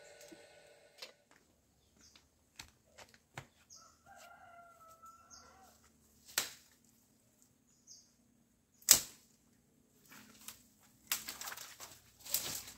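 A hoe striking and scraping the soil of a hillside: scattered sharp knocks, the loudest about nine seconds in, then a run of scraping near the end. A short two-note bird call sounds about four seconds in.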